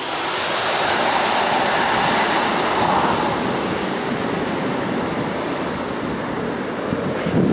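Boeing 737-800's CFM56 jet engines rumbling as the airliner flies by on its landing approach, the sound sliding slowly down in pitch as it passes.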